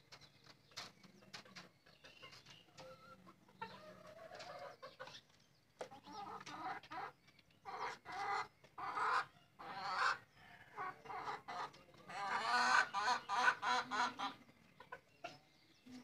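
Desi chickens clucking: a string of short calls that grows louder, with the loudest run of calls from about twelve seconds in.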